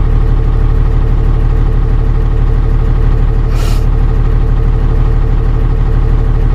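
Dodge Ram's 12-valve Cummins 5.9-litre inline-six diesel idling steadily and smoothly, heard from inside the cab, with the alternator charging. A short hiss about three and a half seconds in.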